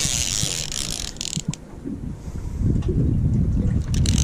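A Charter Special TR 2000 lever-drag fishing reel being cranked, its gears and pawl clicking and whirring. It goes quiet for about a second around a second and a half in, then starts again.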